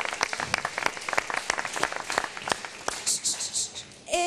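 Audience applauding after a comedy punchline, the clapping thinning and dying away about three seconds in. A held pitched note begins right at the end.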